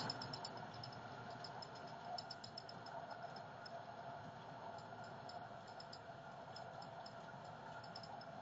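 Konstal 105Na tram running along the track, heard from inside the driver's cab: a steady running hum with a constant tone, and a faint, quick high ticking above it.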